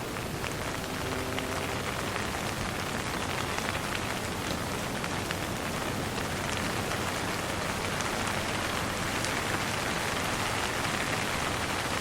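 Light rain falling steadily, with scattered drops ticking on a surface.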